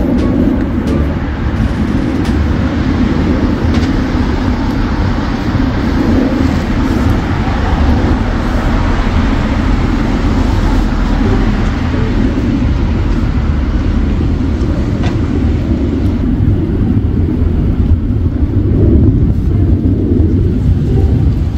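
A steady, loud low rumble with a hiss above it.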